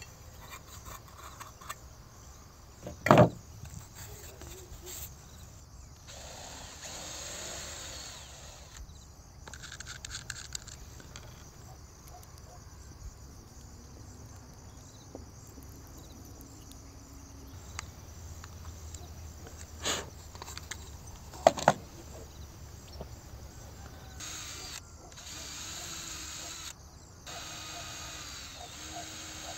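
Cordless drill running in bursts of a few seconds into wood, each burst starting and stopping abruptly. Between them come two loud, sharp knocks, about 3 seconds in and about 21 seconds in.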